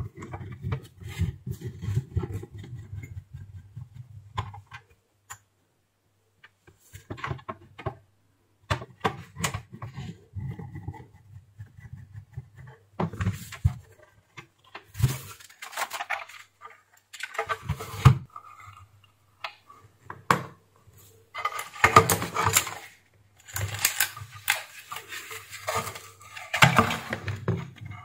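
Hands working on a steam iron's plastic housing and wiring: scattered clicks, taps and scrapes of plastic parts, busier and louder over the last several seconds.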